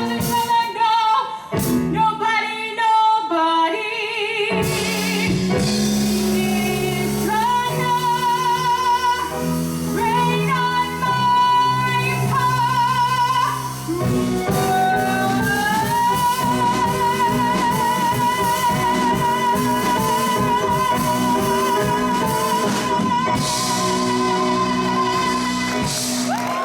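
A woman belting the finale of a Broadway show tune over instrumental accompaniment: several short sung phrases, then one long high note held with wide vibrato for about ten seconds near the end.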